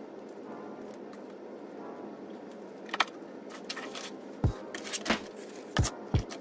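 Handling noise at a desk: a sharp click about three seconds in, a brief rustle, then a few dull knocks as the plastic external hard-drive enclosure and its cords are set down on the desk.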